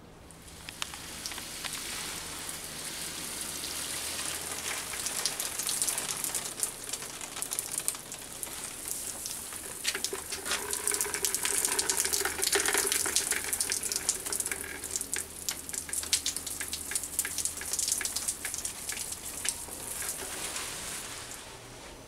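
Water spattering on leaves and a wall: a dense crackling hiss full of fine drip ticks, swelling to its loudest around the middle.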